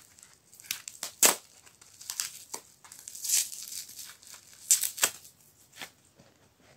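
Brown paper wrapping of a small parcel crinkling and tearing as it is pulled open by hand, in irregular crackles, the loudest about a second in, at three seconds and near five seconds.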